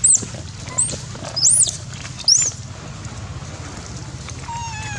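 Young long-tailed macaque giving short, very high-pitched squeals, four in the first two and a half seconds, each rising then falling in pitch. Near the end a lower, falling call follows.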